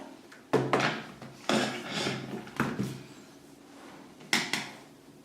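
Plastic knocks and clacks from an Acer Aspire 5 A515-51 laptop's lid and hinge cover being handled and pressed into place, four sharp knocks spaced about a second apart, each with a short scrape after it.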